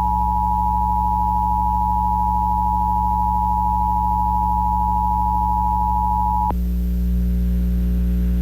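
Emergency Alert System attention signal: the two steady tones (853 and 960 Hz) sounded together over a radio broadcast. The tone cuts off suddenly about six and a half seconds in, leaving only a steady low hum on the line.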